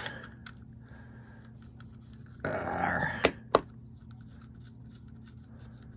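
Faint clicks and handling of spinning-reel parts as the reel is taken back apart, with a short muffled rustle about two and a half seconds in followed by two sharp clicks.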